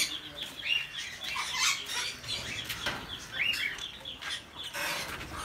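Aviary parrots chirping steadily in short repeated notes, with a few louder rising squawk-like calls over them.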